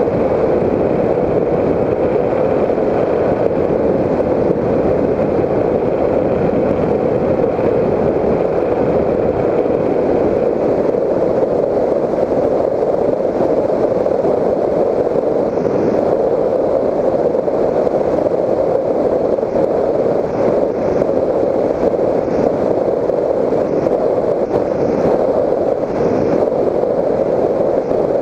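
Onboard sound of a Raptor 1600 FPV model plane in flight: its electric motor and propeller running steadily, blended with wind rushing over the camera, a constant even noise with no change.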